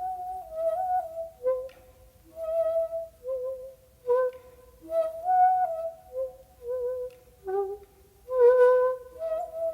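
Solo shakuhachi, the Japanese end-blown bamboo flute, playing short phrases of a few held notes, sliding between neighbouring pitches, with brief pauses between phrases. The loudest, breathiest note comes about eight and a half seconds in.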